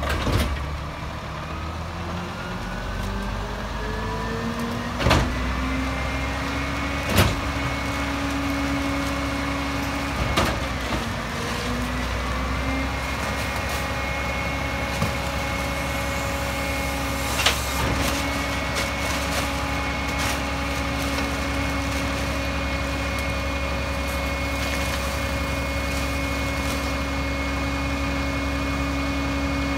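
EZ Pack Goliath rear-loader garbage truck's diesel engine revving up over the first several seconds and then holding at a steady high speed while the packer blade cycles. Sharp knocks and bangs come from the packer and loading about 5, 7, 10 and 17 seconds in.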